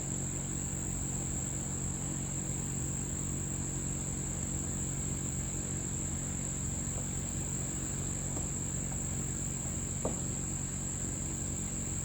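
A steady, high-pitched cricket chorus over a low, even hum, with one faint click about ten seconds in.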